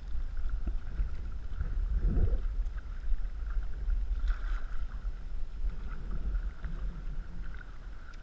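Canoe being paddled on calm water: paddle and water sounds over a steady low rumble, with a couple of louder splashes or knocks about two and four seconds in.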